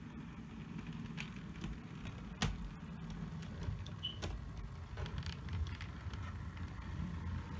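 OO gauge model diesel locomotive running along the track, its motor and wheels giving a steady low rumble that grows a little louder as it approaches, with a few sharp clicks from the wheels on the rails.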